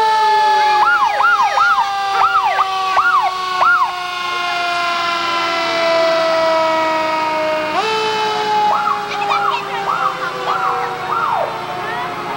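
Fire engine sirens sounding. One is a steady tone that slowly falls in pitch and jumps back up about eight seconds in. Over it come two runs of quick rising-and-falling whoops, two or three a second.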